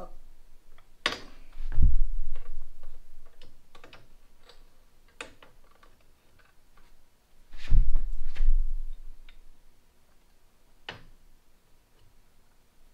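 Irregular clicks and taps of hand tools and metal parts being handled while fitting a motorcycle's rear shock bolt, with two heavier thuds, about two seconds in and again about six seconds later.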